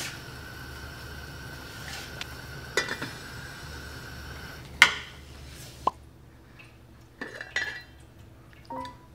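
Clinks and clanks of a spoon and lid against a thin aluminium ramen pot on a gas stove, the loudest clank about five seconds in, over a steady hiss that stops soon after. A few more light clinks follow, and soft piano music comes in near the end.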